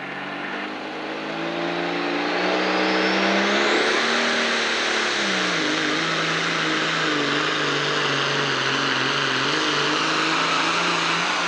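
John Deere 6030 pro stock pulling tractor's six-cylinder diesel at full power hauling the weight-transfer sled. The engine builds over the first few seconds with a high whine climbing in pitch, drops in pitch about five seconds in, then runs loud and steady.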